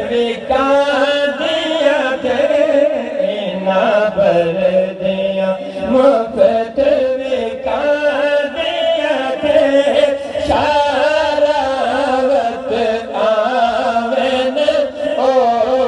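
A voice chanting a wavering, ornamented melody over a steady held drone.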